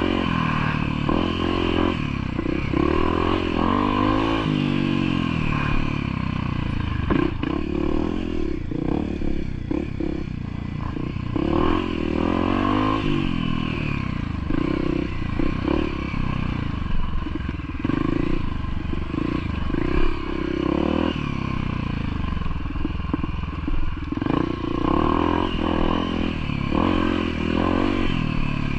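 Motorcycle engine running continuously, its pitch rising and falling as the throttle changes, with some clatter.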